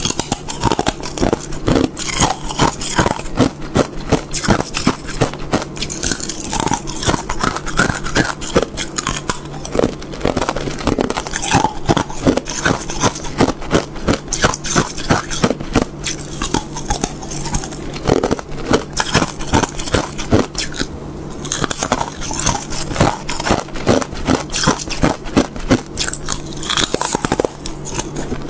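Clear hard ice being bitten and chewed close to a clip-on microphone: rapid, sharp cracking and crunching, bite after bite.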